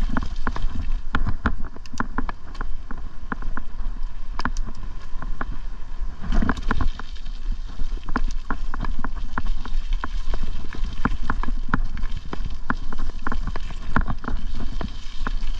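Ride noise on a bicycle: wind rumbling on the microphone, with frequent irregular clicks and rattles.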